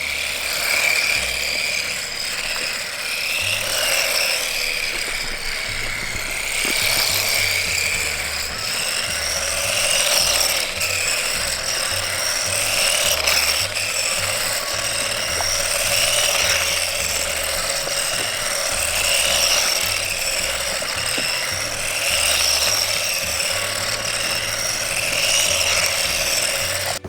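Electric motor and gears of a 1/14-scale four-wheel-drive RC truck whining as it drives, the pitch swelling and easing with the throttle. Background music with a stepping bass line plays underneath.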